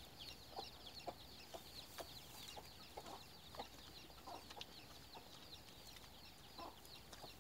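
Faint bird calls: short low calls every half second or so over a steady chatter of many high chirps.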